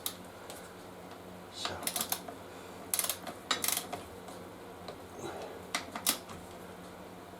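Torque wrench with a 13 mm socket ratcheting in a few short clusters of sharp clicks as the brake caliper bolts are tightened to 50 Nm.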